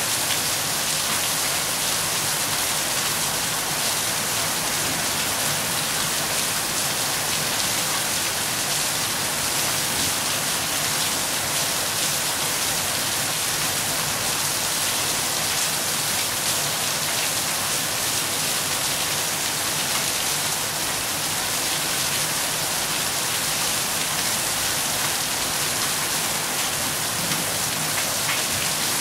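Steady rain falling: an even, dense hiss of rain with faint scattered drop ticks, holding level with no let-up.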